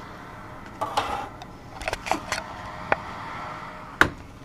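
Steady hum with scattered clicks and knocks as a 3D printer's build tray of printed parts is handled and carried; the sharpest knock comes near the end.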